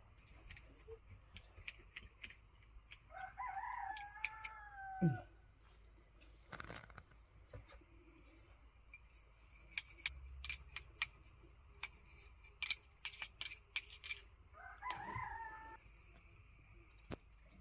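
A rooster crowing twice. The first crow is long and ends in a falling tail; the second, about ten seconds later, is shorter. Short sharp clicks and scrapes fall in between.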